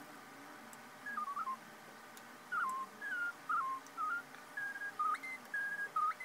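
A person whistling a tune: short clear notes stepping up and down in pitch, starting about a second in and running on more busily toward the end.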